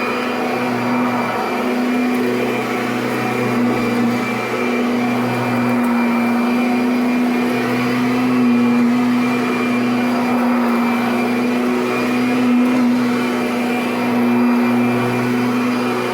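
Kirby Sentria (G10) upright vacuum cleaner running on carpet, its motor holding one steady pitch without bogging down.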